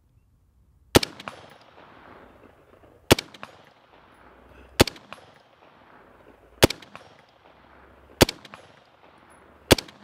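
Heckler & Koch G36 rifle in 5.56×45mm NATO firing six single shots, one every one and a half to two seconds. Each report is sharp and trails off into a fainter tail.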